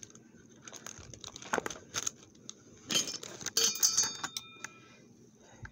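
Small objects being handled in a cardboard box: a few light clacks and knocks, then a short run of metallic clinks with a brief ringing tone a little past the middle.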